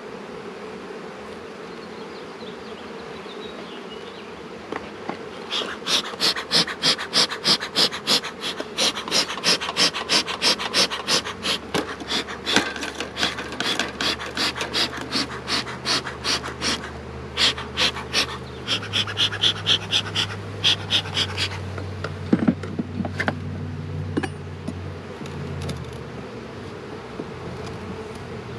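A beekeeper's bellows smoker pumped over and over, a rhythmic run of airy puffs about three a second for some fifteen seconds, as he fights a balky smoker. Under it the honeybees of the open hive buzz steadily, and near the end come a few sharp knocks.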